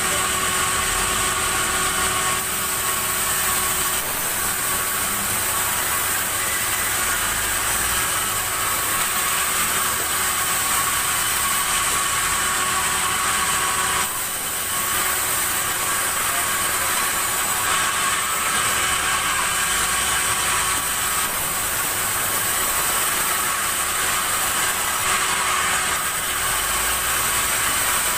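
Sawmill machinery running steadily: a continuous engine-and-saw noise with a steady whine, dipping briefly about halfway through.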